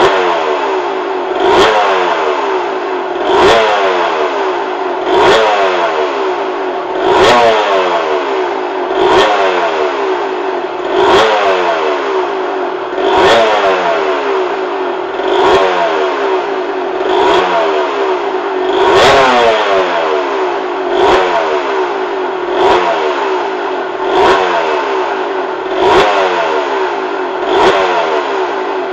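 Suzuki RG125F's single-cylinder 125cc two-stroke engine, freshly rebuilt, revved in sharp blips about every two seconds, each one dropping back toward idle.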